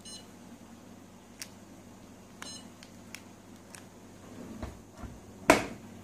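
Whirlpool WFO 3033 dishwasher's control panel giving two short electronic beeps as its touch buttons are pressed, about two and a half seconds apart, with a few light clicks in between. Near the end comes a single loud thump.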